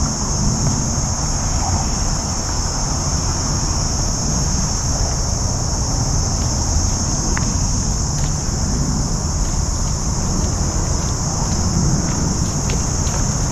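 Steady high-pitched buzzing chorus of cicadas, with a low rumble underneath.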